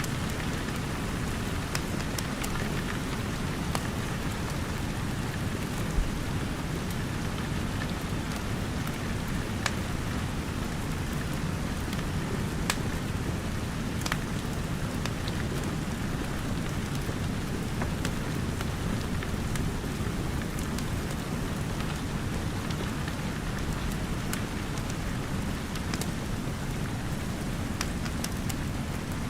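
Steady rain with a low rumble underneath, mixed with the irregular crackles and pops of a wood fire, a few sharper pops standing out.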